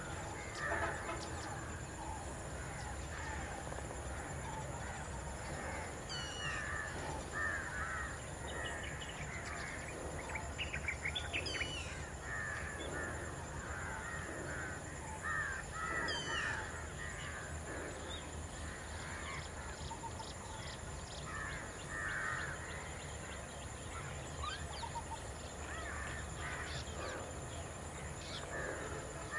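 Crows cawing in short bouts every few seconds among other birdsong, including a few quick falling whistles. Underneath run a steady high-pitched whine and a low steady hum.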